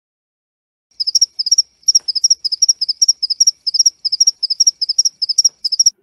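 Male field cricket's calling song, made by rubbing its forewings together: short high chirps of three or four pulses each, about three chirps a second, starting about a second in. It is the 'cri-cri' a male sings to attract females of its species for mating.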